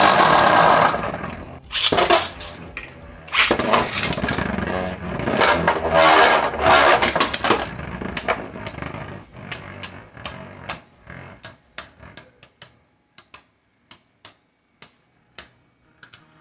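Beyblade Burst tops spinning and clashing in a plastic stadium: a loud scraping whir with repeated hits. From about eight seconds in, it thins into separate sharp clicks that come further and further apart as the spin dies down.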